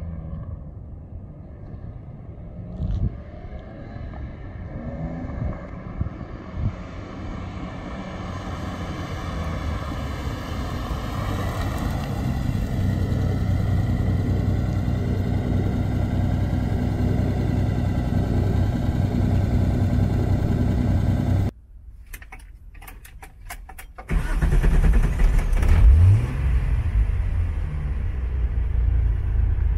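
Datsun 240Z race car engine under way, rising in pitch and loudness as the car comes closer and runs past, then holding a steady loud drone. It breaks off suddenly for a couple of seconds, then comes back as a deep, low rumble with one quick rising rev.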